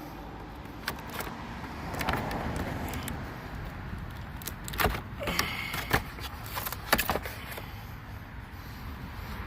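Utility knife cutting packing tape and cardboard to open a tool box: scattered sharp clicks and scrapes, the loudest about five, six and seven seconds in, over a faint steady low rumble.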